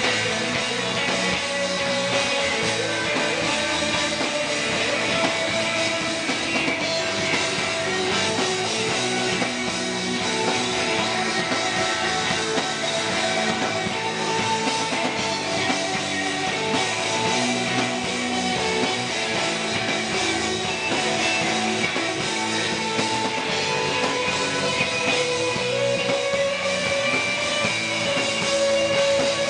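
Punk rock band playing live with no vocals: electric guitars over a drum kit, with long held guitar notes ringing above.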